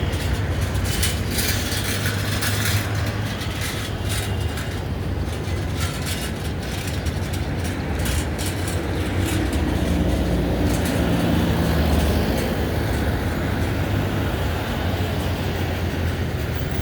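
Steady low vehicle rumble, with light rattling clicks in the first half and a pitched motor hum coming up about ten seconds in.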